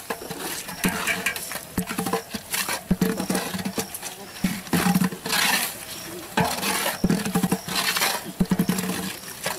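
A long metal ladle scraping and knocking against the side and bottom of a large aluminium cooking pot as spice paste is stirred, in a quick run of irregular clacks and scrapes.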